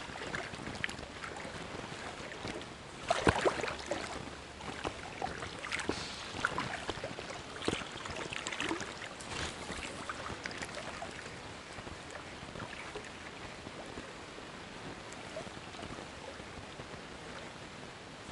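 A small river running steadily, with scattered short clicks and knocks in the first half, the loudest about three seconds in.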